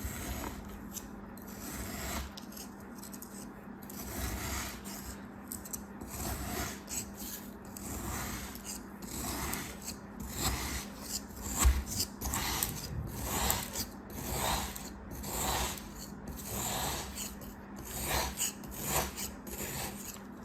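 A series of raspy scraping and rubbing strokes, roughly one a second, coming more regularly and louder in the second half.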